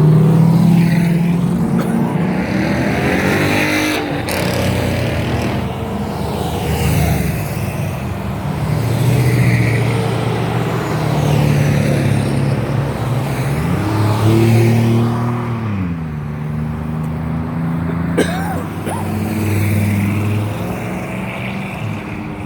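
Loud car engines driving past one after another, with the pitch shifting as each one goes by; about two-thirds of the way through, one engine revs up and drops back.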